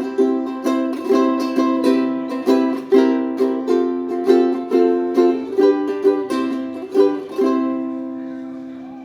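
Mandalika tenor ukulele played in a run of strummed chords, the last one about seven seconds in left to ring and fade away.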